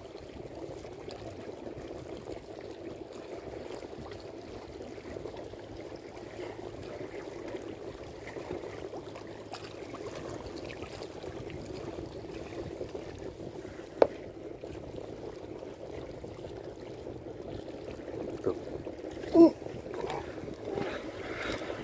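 Water lapping and trickling against the hull of a small fishing boat, a steady wash, with a single sharp click about two-thirds of the way through.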